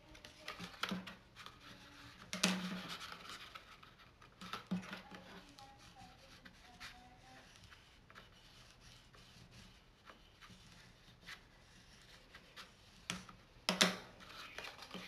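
Cardstock paper being handled on a wooden tabletop: intermittent rustles, scrapes and light taps, the loudest about two and a half seconds in and near the end.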